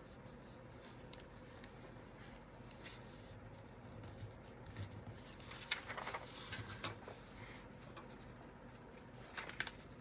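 Faint rustling and light ticks of paper being handled on a craft table, with a few sharper crinkles about six seconds in and again near the end.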